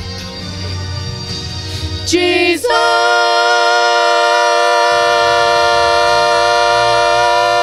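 Church music with singing: a softer passage, then about two and a half seconds in a full chord comes in and is held steadily.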